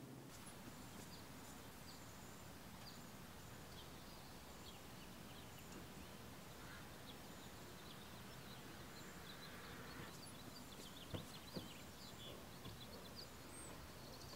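Faint outdoor ambience with small birds chirping on and off, and a few soft knocks near the end.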